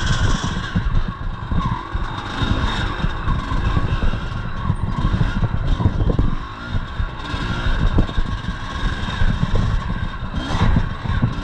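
1983 Yamaha IT 250 two-stroke single-cylinder dirt bike engine running under throttle on a trail ride, heard from a chest-mounted camera, with knocks and rattles from the bike over rough ground. The throttle eases off briefly about six and a half seconds in, then picks up again.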